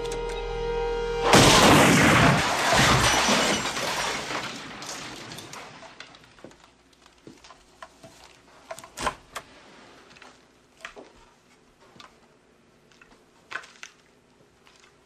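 A sudden loud crash with shattering, dying away over a few seconds, followed by scattered small clicks.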